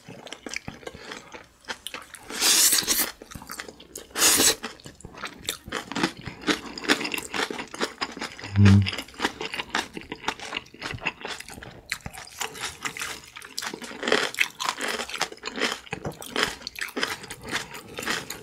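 Close-up eating sounds of kimchi-wrapped spicy noodles: wet chewing, smacking and crunching of kimchi cabbage. There are two loud slurps about two and a half and four and a half seconds in, and a short low hum about halfway.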